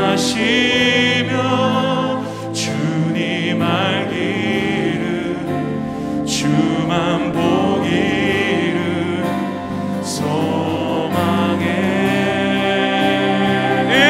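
Live worship band accompanying several vocalists singing a slow Korean praise song, the voices held on long, wavering notes.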